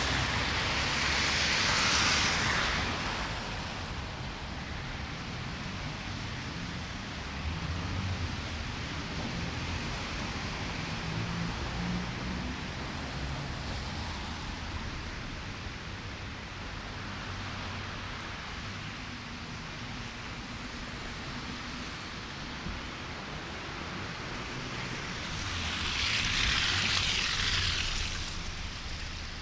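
City street ambience in a snowstorm: a steady wash of traffic and wind noise, with tyres hissing as a vehicle passes at the start and another swells past near the end.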